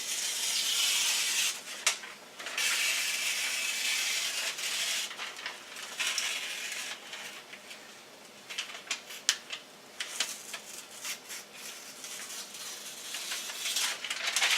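Aluminum foil duct tape being torn and peeled from its paper backing: two long ripping stretches in the first six seconds, then short crinkles and crackles of the foil as it is handled.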